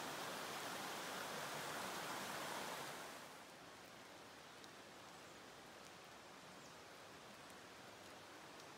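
Chattooga River water rushing over rocks in a shallow riffle, a steady hiss that drops suddenly about three seconds in to the quieter, softer flow of a calm pool.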